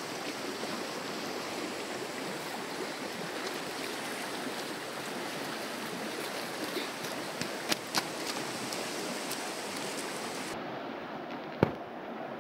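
Steady rushing of a fast-flowing river, with a few sharp clicks in the middle and a single louder knock near the end. About two seconds before the end the rushing turns duller.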